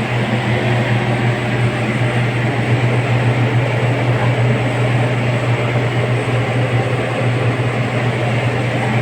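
Pellet-fired steam boiler running: a steady, loud mechanical noise from its burner and draught fan, with a strong low hum.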